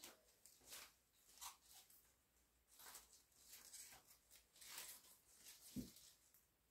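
Faint rustling of leaves and stems as a hand-tied bouquet of fresh flowers and foliage is turned in the hands, in several short swishes, with a soft low thump near the end.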